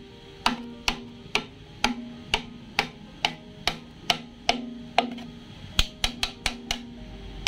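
Sharp, ringing taps, about two a second and coming faster near the end, as a piston fitted with new rings is tapped down into the cylinder liner of a single-cylinder diesel engine.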